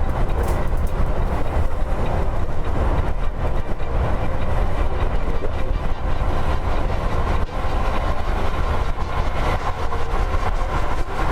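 Steady rumble of a double-decker coach driving on a wet highway, heard inside the driver's cab: engine and tyre noise on the rain-soaked road.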